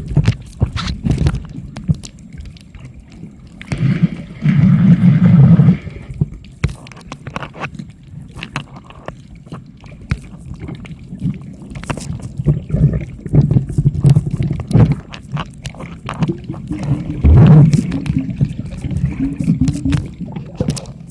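Water sloshing and gurgling around the microphone, with many small knocks and clicks and a louder rush of water about four seconds in.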